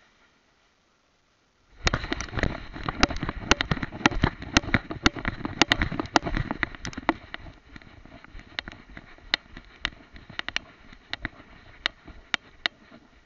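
Contact noise on a camera strapped to a dog's head: rubbing and scraping with many sharp clicks and crackles as the dog moves through grass and brush. It starts suddenly about two seconds in, is heaviest for the next five seconds, then thins to scattered clicks.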